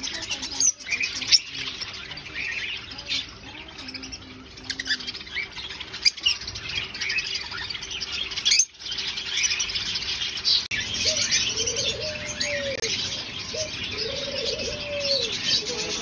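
A roomful of caged lovebirds and other small cage birds chirping, many high calls overlapping without a break. From about eleven seconds in, a lower, arching call repeats among the chirps.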